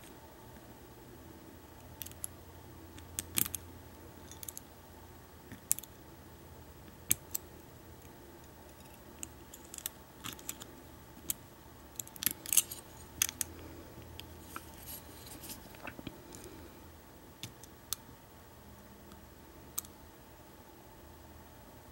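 Lock pick and tension wrench working the pin tumblers of an American Lock 1100 padlock: irregular small, sharp metallic clicks and light scraping as the pins are picked. The clicks come most thickly a little past the middle.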